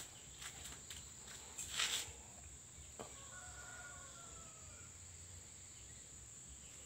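Quiet rural ambience: a steady high-pitched insect buzz throughout, a short rustling burst about two seconds in, and a faint drawn-out bird call about three seconds in.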